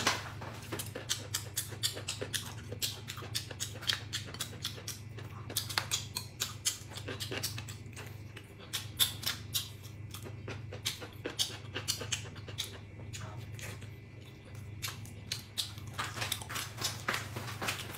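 A man eating a soft steamed bun close to the microphone: many quick, irregular mouth clicks and lip smacks of chewing, over a low steady hum.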